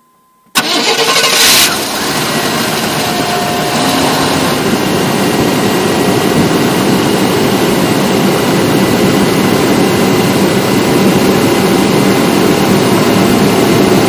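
A GM 5.7 L TBI V8 starts up cool after sitting overnight, catching about half a second in. It is louder for about a second, then settles into a steady idle. It runs smoothly with no misfire, so the cold-start stumble is cured after new ignition parts.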